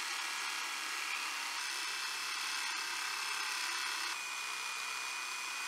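Bosch PBH 2100 SRE corded SDS rotary hammer drilling a 12 mm bit into concrete, running steadily. The sound shifts slightly about four seconds in, where the pressure on the drill goes from light to medium.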